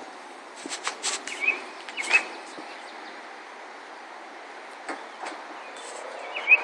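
Outdoor background hiss with a few short rising bird chirps and several sharp clicks and knocks, clustered in the first two seconds and again near the end.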